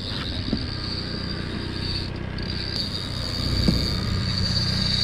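Boat motor running steadily at trolling speed, a low, even hum, with a high, steady buzzing whine over it that breaks off briefly about two seconds in.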